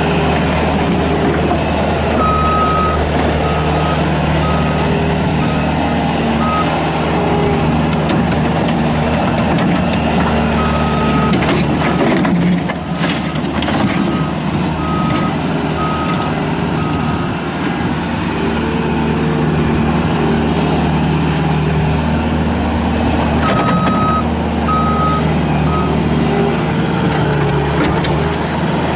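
Bobcat S250 skid steer loader's Kubota diesel running steadily while the machine is driven. Its backup alarm beeps in several runs as it reverses.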